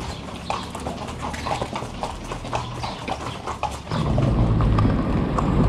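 Horse hooves clip-clopping, several uneven knocks a second. About four seconds in they give way to a sudden, louder low rumble.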